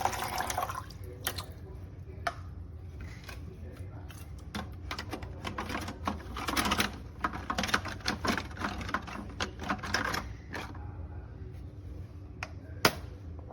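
Water being poured into a mini evaporative air cooler's tank, with its plastic parts clicking and knocking as the unit is handled, and a sharp click near the end. A steady low hum runs underneath.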